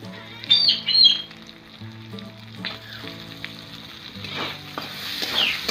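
Chopped tomatoes sizzling as they fry in hot spiced oil in a metal karahi, stirred with a metal spatula that scrapes loudly against the pan twice in the first second or so. Soft background music runs underneath.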